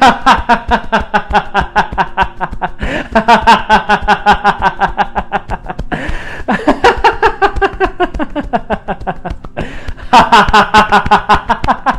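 A man laughing loudly and deliberately in long runs of "ha-ha-ha" while tapping his chest. The laughter comes in rapid, even pulses, with short breaks for breath about three, six and ten seconds in.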